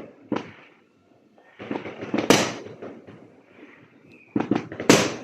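Fireworks going off: a sharp bang just after the start, a crackling spell with a loud bang about two seconds in, then a quick run of bangs near the end, the last one the loudest.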